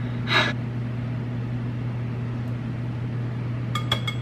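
Wire balloon whisk beating cake batter, starting near the end with quick clinks against the mixing bowl, which rings after each strike, about four a second. A steady low hum runs underneath.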